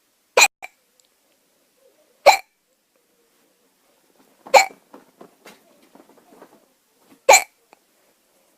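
A person hiccuping: four sharp hiccups about two to three seconds apart, with a few faint clicks after the third.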